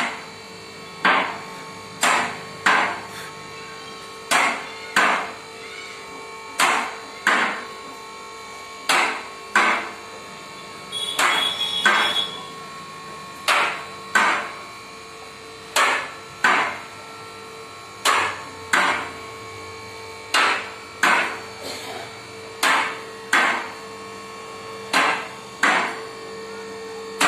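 Empty two-post car lift rising: the safety-lock latches clack in pairs about every two seconds as the carriages pass each lock notch, over the steady hum of the hydraulic power unit. A short hiss with a high squeak comes a little before halfway.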